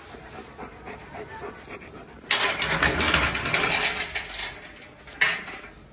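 German Shepherd panting close by: a loud, noisy run of breaths starts about two seconds in and lasts about two seconds, with one more short burst near the end.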